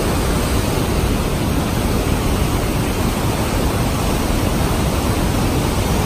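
Water rushing out of a dam's outlet tunnel and churning into whitewater below: a loud, steady rush with no let-up.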